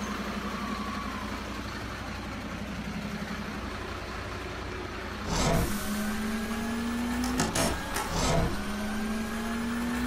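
Motorised Bruder toy tow truck: a steady low pulsing hum, then from about halfway a small electric motor whine that rises slowly in pitch, broken twice by a few sharp clacks.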